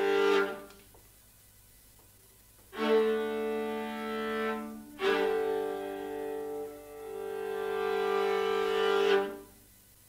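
String quartet of two violins, viola and cello bowing sustained chords broken by pauses: a chord cut off just after the start, another about three seconds in, and a longer one from about five seconds in that swells louder and stops suddenly near the end.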